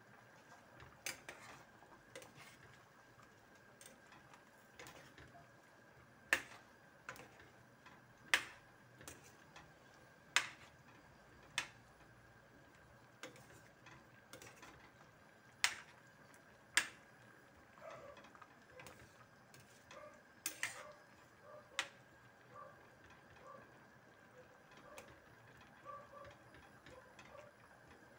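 Squash simmering in coconut milk in a stainless steel pan: faint bubbling with scattered sharp pops and clicks, as a spatula stirs the squash and knocks against the pan. Small soft blips come thicker in the second half.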